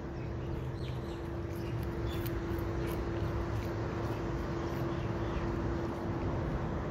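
A cat chewing dried small fish, with faint crunching ticks, over a steady hum and low background rumble.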